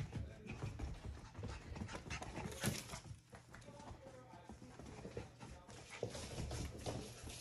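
Young Portidoodle puppies scampering and wrestling, their claws clicking and pattering on the floor in quick irregular taps, with a few small puppy noises.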